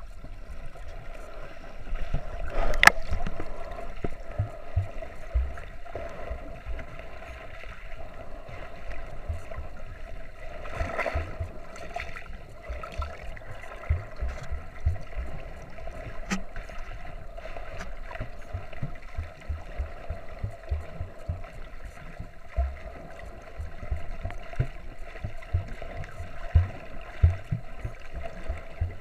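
Muffled underwater sound from a submerged camera: a steady wash of water with many irregular low bumps and knocks, and a sharp click about three seconds in.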